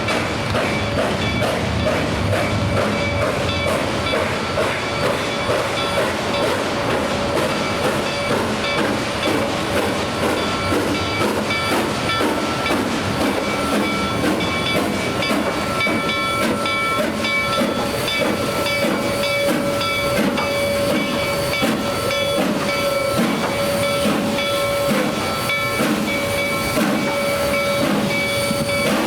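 Train running by: a steady rumble and hiss, with several steady high ringing tones over it. From about halfway through, a regular rhythmic beat comes in.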